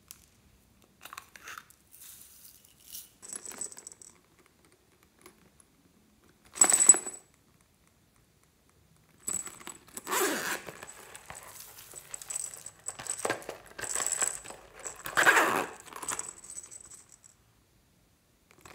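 Small plastic pieces clicking and rattling as they are handled over a glass bowl of beaded slime, with one sharp clatter about seven seconds in. From about nine seconds in, a small metal jingle bell on a zippered cloth pouch jingles in repeated bursts as the pouch is handled.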